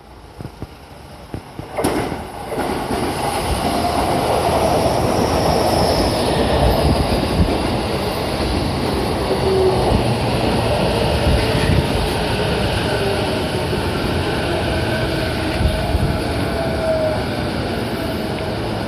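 Sotetsu 11000 series electric train running close by. Its noise rises sharply about two seconds in and stays loud, with whining tones that slowly slide in pitch over the rumble of the wheels on the rails.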